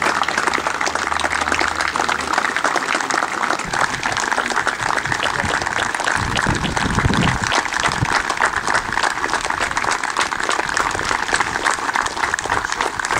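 A small crowd of football spectators clapping steadily, a dense patter of hand claps. A brief low rumble about six seconds in.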